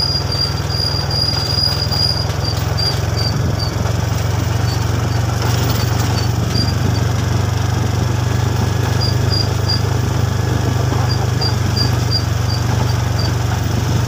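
Small motorcycle engine running steadily at an even speed, with a faint high-pitched pulsing chirp over it.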